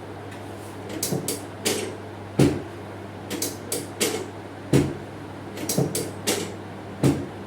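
Irregular knocks and thumps from hands-on chiropractic treatment of the back, about a dozen in all, three of them heavier, over a steady low hum.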